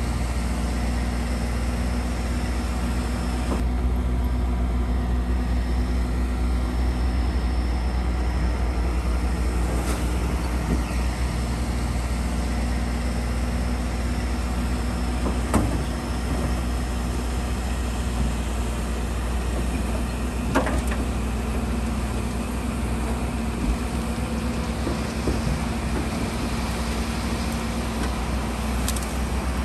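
Heavy diesel engines of bulldozers and dump trucks running steadily, with a few sharp knocks.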